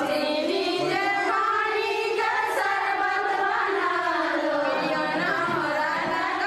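A group of women singing a song together.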